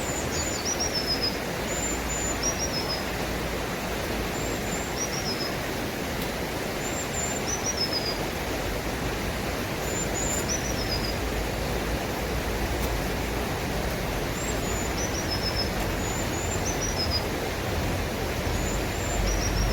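A songbird repeating short, high, falling chirps every couple of seconds, over a steady hiss.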